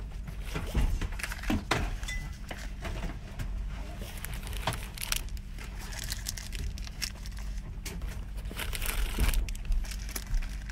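Small cardboard boxes being handled and pushed into a train seat-back net pocket: irregular rustling, crinkling and light knocks, over a steady low rumble of the train.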